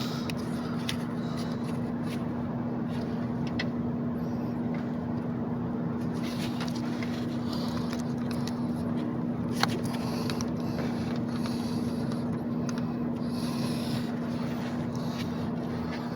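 A steady mechanical hum with a constant low tone, and a few light clicks and taps scattered through it.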